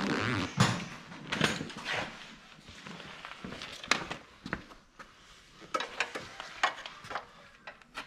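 Metal hand tools clinking and knocking at irregular intervals as wrenches and sockets are picked up, set down on a concrete floor and fitted to the minibike's rear axle nut while the rear wheel is being tightened.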